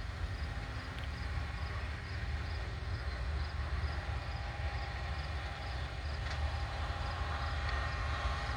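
Steady low engine rumble of potato-harvest machinery and loaded trucks at work, with a faint high chirp repeating about twice a second.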